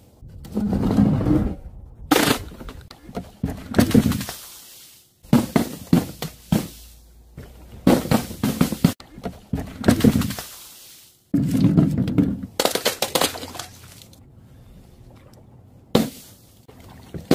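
Paint-filled balloons and balls dropped onto a bed of nails, bursting one after another with thumps, pops and splatters. The sound breaks off abruptly several times between drops.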